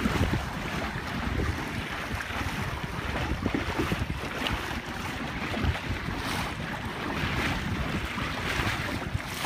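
Wind buffeting the microphone in uneven gusts, over water rushing and slapping along the hull of a small sailboat under sail.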